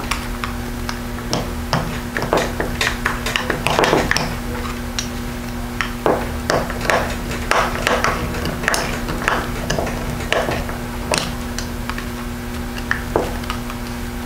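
Small screwdriver driving screws into the plastic handle of a hot air rework gun: irregular little clicks, taps and scrapes as the screws are tightened and the handpiece is turned in the hands, over a steady low hum.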